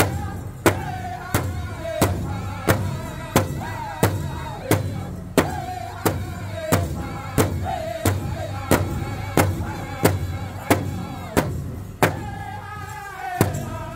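A powwow drum group striking a large hide-covered drum in unison at a steady beat of about three strikes every two seconds, singing a Men's Chicken Dance song in high, wavering voices over it. Shortly before the end the drum stops for about two seconds under the held singing, then the beat starts again.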